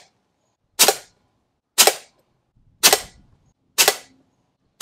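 A .22 Diana Bandit pre-charged pneumatic air pistol being fired in a slow string, about one shot a second: four sharp cracks that die away quickly, with a fifth right at the end.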